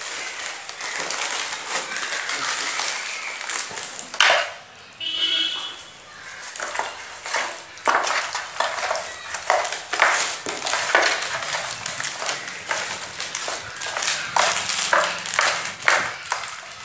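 Bare hands squishing and slapping raw chicken pieces on a steel plate as they rub in the masala marinade, with a run of irregular wet slaps and clicks against the metal.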